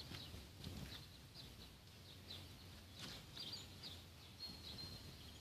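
Near silence: faint background hiss with a few small, scattered bird chirps and one short high whistled note near the end.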